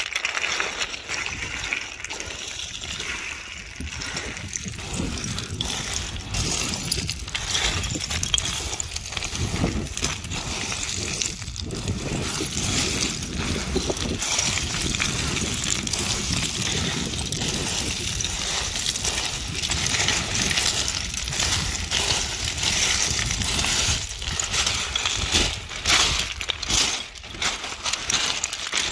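Loose scree crunching and clattering under hiking boots on a steep descent, with small stones sliding and chinking against each other in a continuous rush of clicks.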